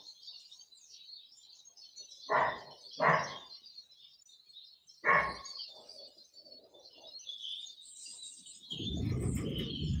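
Small garden birds chirping and twittering continuously, with a dog barking three times, about two, three and five seconds in. A low rumbling noise builds near the end.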